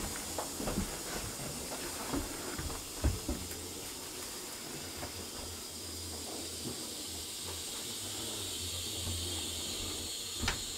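Steady hiss over a low hum, with a few faint knocks and clicks in the first three seconds.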